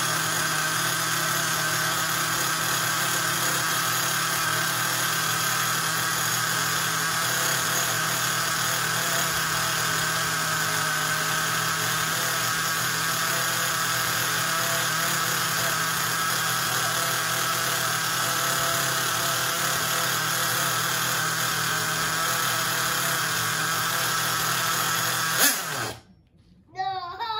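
Hobao Hyper 21 three-port nitro engine running steadily at high revs, then cutting off suddenly with a click near the end. The revs run away and won't come down, which the owner puts down to the engine running a little lean from an air leak.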